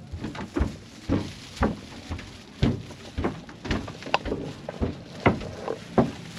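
Irregular knocks and thuds, about a dozen at roughly two a second, from passengers and bags moving about a boat as it fills.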